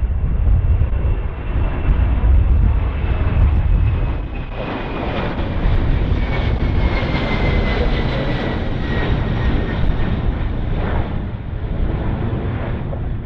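Airbus A300-600ST Beluga's two CF6-80C2 turbofan engines at takeoff power as the jet goes by: a heavy low rumble, then a brighter rush of jet noise in the middle that eases off near the end, with a thin whine sliding slowly down in pitch.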